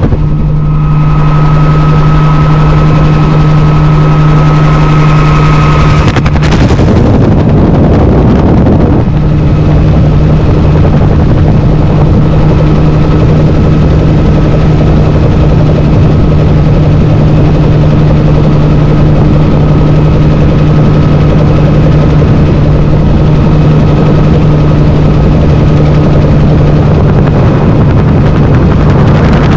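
Bell 47 helicopter in flight heard from on board: its piston engine and rotor make a loud, steady drone. About six seconds in, a rush of broader noise covers the drone for some three seconds before it settles again.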